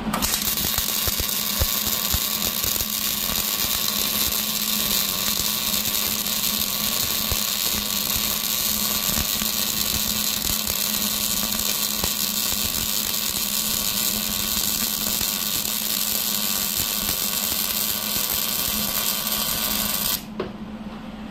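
Wire-feed welder arc crackling and hissing steadily as a weld bead is run on a steel backhoe bucket, cutting off abruptly near the end when the trigger is released.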